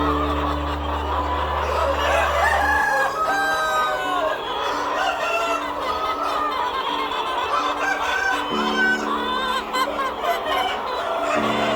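A flock of chickens clucking, with roosters crowing among them, over background music of long held low notes.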